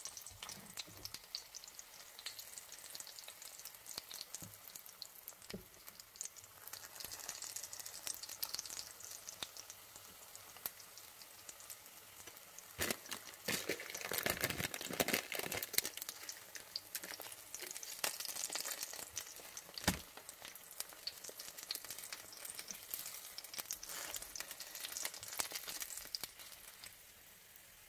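Apple spring rolls shallow-frying in oil and caramelised sugar in a pan, a steady crackling sizzle that swells about halfway through. A few sharp clicks of the metal utensil turning the rolls.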